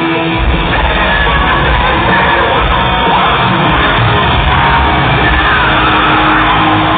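Loud live hard rock band playing in a stadium, heard from the crowd, with yelling from the audience over the music.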